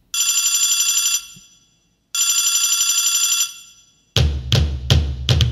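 A telephone rings twice, each ring with a fast trill lasting just over a second. Drum-led music starts with sharp hits about four seconds in.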